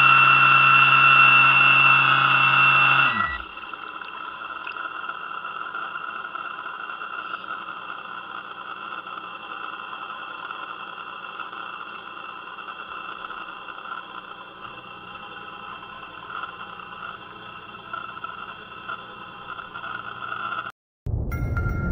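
An RC fire boat's electric drive motor whines steadily at speed, then winds down and stops about three seconds in as the throttle is cut. A much fainter steady whine carries on, and music starts just before the end.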